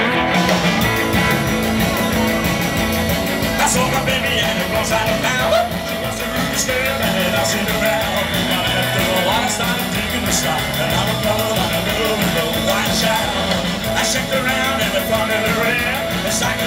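Live rock and roll band playing through a PA: electric guitars over a steady drum beat.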